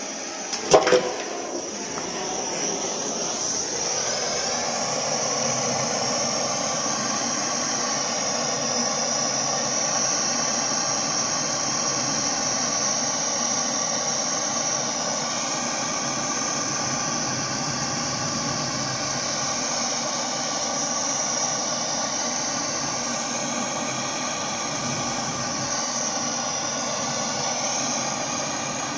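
Girolami Twin Slim pellet stove's fan starting up with a few clicks about a second in, then running with a steady whoosh and a faint hum.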